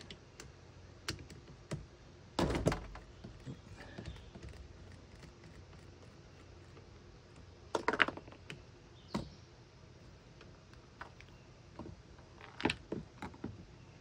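Scattered clicks and knocks of a screwdriver and metal parts being handled on a boat's shift/throttle control box while a control cable end is unfastened, with a heavier thump a couple of seconds in and a louder clatter about halfway through.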